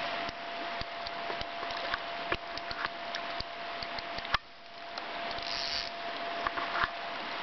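Steady rush of a flowing river, with scattered light clicks and a sharper knock about four and a half seconds in, after which the sound briefly drops. A faint steady whine runs underneath.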